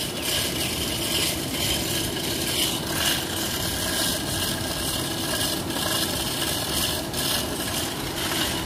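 Steady rushing and splashing of turbulent water churning in a large open concrete treatment tank, with a faint steady hum underneath.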